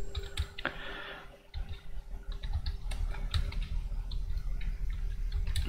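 Typing on a computer keyboard: irregular keystrokes in quick succession.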